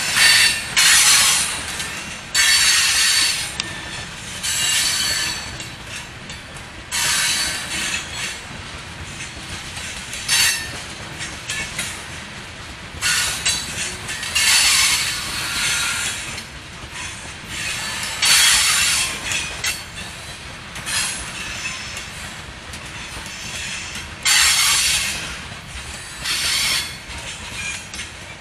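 Rock train hopper cars rolling past with a steady rolling noise, their wheels squealing against the rail in short, high-pitched bursts every one to three seconds.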